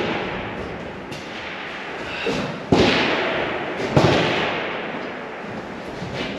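Two precision rifle shots a little over a second apart, each a sharp crack followed by a long rolling echo, with fainter clicks between them.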